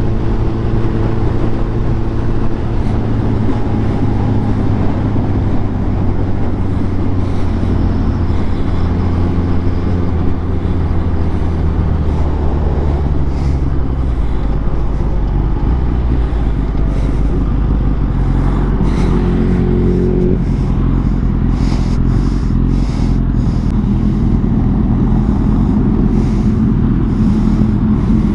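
Honda CBR1000RR SP's inline-four engine running at low, fairly steady revs while riding, the pitch shifting slightly a couple of times, with wind noise on the microphone.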